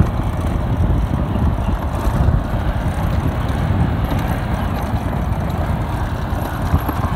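Honda XR motorcycle running while riding a rough off-road track: a steady low rumble mixed with rough road noise.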